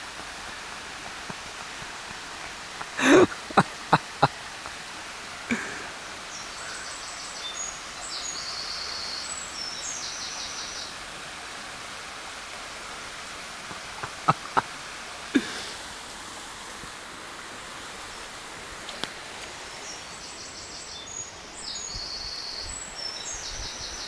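Steady rushing of a shallow burn over stones, with a songbird singing two similar high phrases well apart. Several sharp clicks or knocks come a few seconds in and again near the middle.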